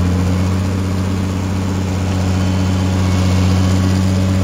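Diesel engine of a Tata Hitachi EX130 crawler excavator running at a steady speed, heard up close.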